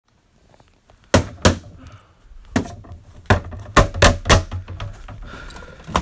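A run of loud, irregular thuds and bangs, seven hits over about three seconds, meant as noise from upstairs neighbours coming through the ceiling.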